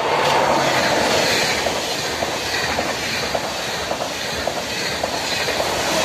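Double-deck TGV Duplex trainset passing close by: a loud, steady rush of wheel and air noise with regular clicks of the wheels, about two or three a second.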